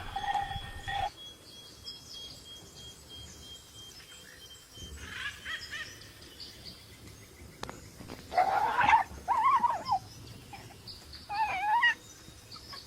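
An animal's calls: several short, wavering, whining cries, the loudest a rising cry about eight seconds in.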